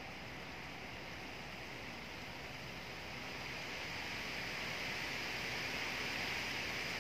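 Wind rustling through tree leaves: a steady hiss that swells louder about three seconds in.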